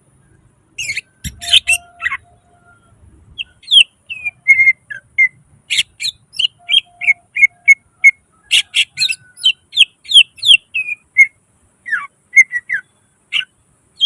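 Cucak ijo (green leafbird) singing a fast string of short whistled notes and chirps, broken by a few harsh rasping bursts, after a second or so of quiet at the start.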